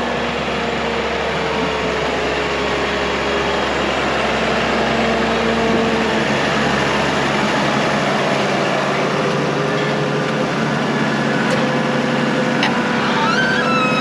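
New Holland T7 tractor engine running steadily, its pitch drifting slightly. Short high chirps come in near the end.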